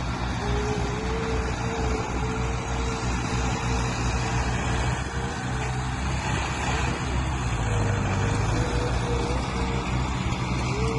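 Heavy diesel earthmoving machinery running steadily, a deep engine rumble with a thin, wavering whine above it that comes and goes.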